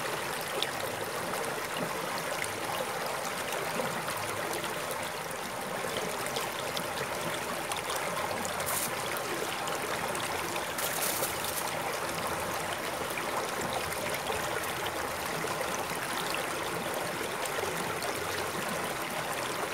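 Shallow, rocky stream flowing and trickling steadily over stones.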